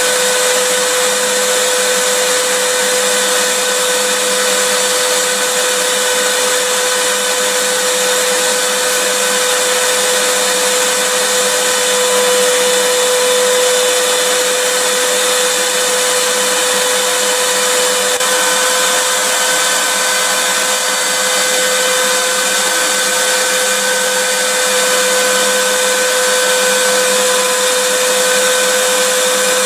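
Vacuum cleaner running steadily, a constant motor whine over a loud airflow hiss.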